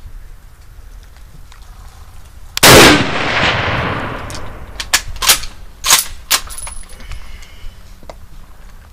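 Mosin-Nagant bolt-action rifle fires a single shot about two and a half seconds in, with a long echoing tail. About two seconds later come four sharp metallic clicks as the bolt is worked.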